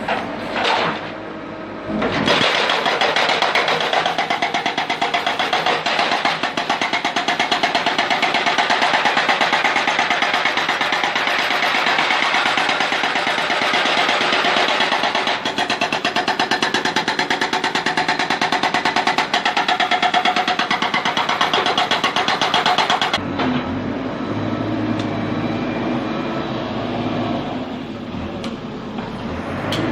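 A backhoe's hydraulic breaker hammer chattering rapidly against stone. It starts about two seconds in and cuts off suddenly a few seconds before the end, leaving the backhoe's diesel engine running.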